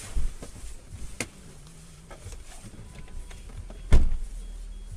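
Vehicle sounds with a low rumble and a few light knocks, then one loud, sharp thump about four seconds in.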